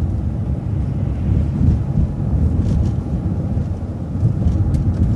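City transit bus driving: a steady, low engine and road rumble heard from on board.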